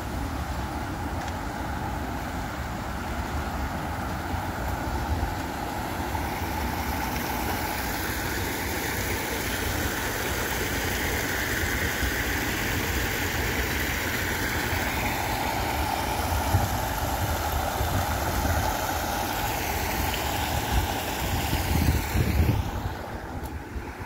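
Steady rushing noise of water falling in a waterfall fountain into its pool, with low wind rumble on the microphone. The water sound drops away sharply about a second and a half before the end.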